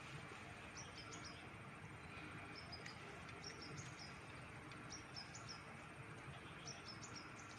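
A small bird singing faintly, repeating short phrases of quick high chirps every second or two, over a steady low background hiss.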